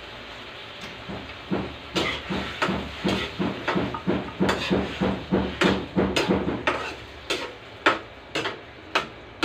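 Metal spatula knocking and scraping against a steel wok, about two or three strikes a second, while sardines are stirred into the sautéing vegetables, over a steady frying hiss. The strikes begin about a second and a half in and grow sparser near the end.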